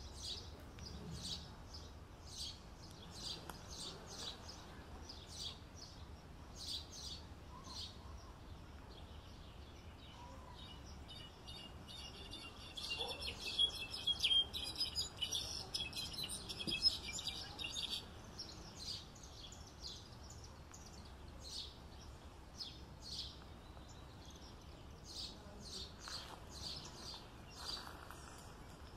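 European goldfinch singing: scattered short high chirps, then a burst of rapid, dense twittering song from about eleven seconds in that lasts some seven seconds before the scattered chirps resume. Faint steady background noise runs underneath.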